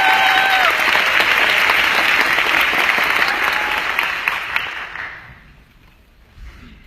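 Audience applauding, with a short held call from the crowd at the start. The applause dies away about five seconds in.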